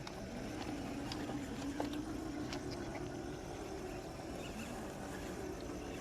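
Traxxas TRX4 RC crawler's 550 brushed electric motor and gear drive whining at crawling speed, the pitch wavering as the load changes, with a few sharp clicks in the first few seconds.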